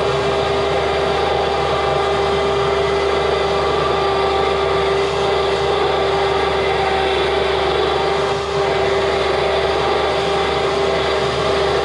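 Motorized roll-off observatory roof closing: its drive motor runs with a steady hum the whole time.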